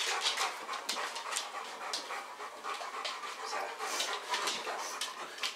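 A dog panting steadily, a quick run of breaths in and out.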